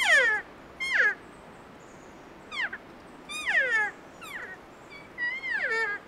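Elk cow calls: a series of about six short, high mews, each sliding steeply down in pitch, some with a wavering start.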